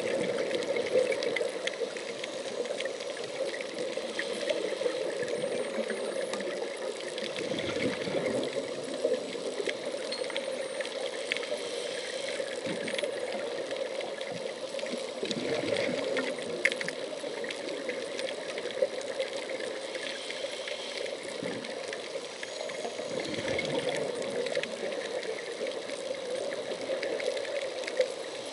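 Underwater sound picked up by a camera in its dive housing: a steady rushing noise with scattered sharp clicks, and a few low swooshes spaced several seconds apart, like a scuba diver's exhaled bubbles.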